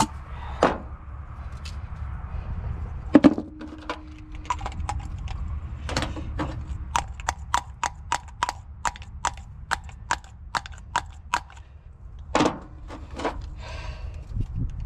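Hand tools working on a truck engine's thermostat housing: a few separate metallic knocks, then a steady run of sharp clicks at about three a second, over a low rumble.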